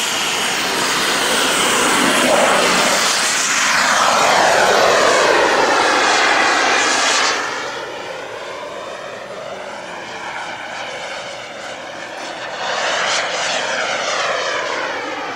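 Turbine engine of a Sebart Avanti S radio-controlled model jet at high power through the takeoff run and climb-out: a loud jet rush and whine whose pitch sweeps as the plane passes. It drops off sharply about seven seconds in and swells again near the end as the jet passes once more.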